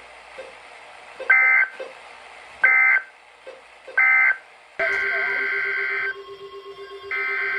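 Weather radio SAME digital alert data bursts: three short, shrill data bursts about a second and a half apart, the end-of-message code closing the previous alert. About five seconds in, longer bursts in the same pitch start, a second apart: the header of the next alert. A steady lower tone sits under the later bursts.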